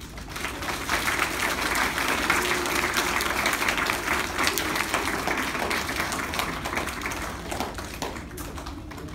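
A crowd of seated schoolchildren applauding, many hands clapping at once; it builds over about the first second and tapers off near the end.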